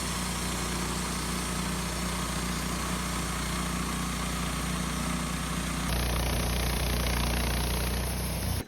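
Wood-Mizer LT15 band sawmill running steadily as its blade cuts a board off a ponderosa pine cant. The sound changes abruptly about six seconds in, growing a little louder and hissier, and stops suddenly at the end.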